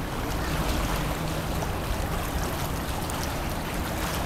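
River water lapping and moving, over a steady low rumble.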